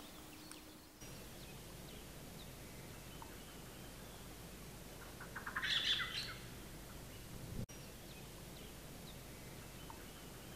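Small songbirds chirping over a faint steady background, with one loud burst of chirping about halfway through.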